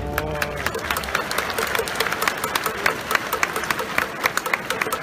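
Large stadium crowd applauding, with sharp claps close by standing out over the steady clapping of the stands. A piece of string music dies away in the first second.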